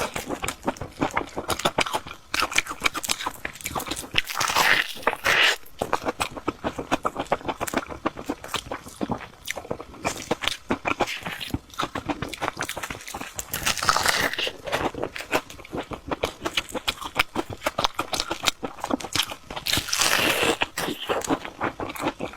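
Crispy fried bread being bitten and chewed, a steady run of crunchy chews with louder crunches about four, fourteen and twenty seconds in.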